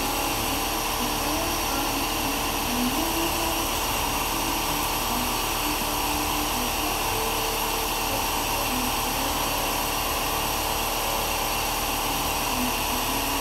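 Steady mechanical drone with several constant hum tones, unchanging throughout.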